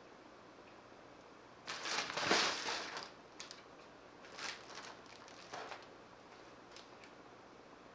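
A cat moving in a fabric play tunnel, the tunnel's material rustling in a loud burst of about a second, then a few shorter, fainter rustles.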